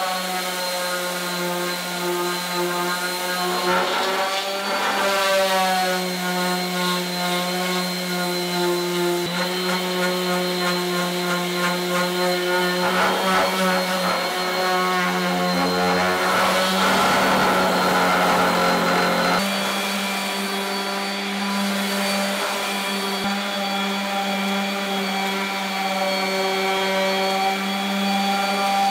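Random orbital sander running steadily on bare wooden slats, a constant motor whine with the pad rubbing the wood, as the finished chair frame is sanded smooth before finishing. The pitch steps up slightly about two-thirds of the way through.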